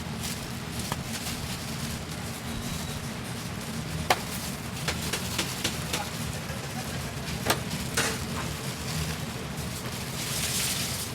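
Food-stall kitchen work: scattered sharp clicks and knocks over a steady low hum, with a short burst of hiss near the end.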